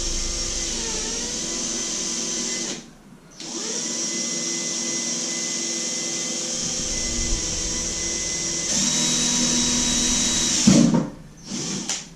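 Electric drill running steadily as it bores a small hole for an alarm LED. It stops briefly about three seconds in, starts again, runs louder near the end and then cuts off with a thump.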